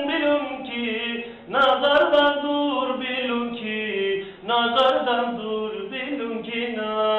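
A man singing a Turkish folk song in long, sliding phrases, with short breaks about a second and a half in and again past four seconds.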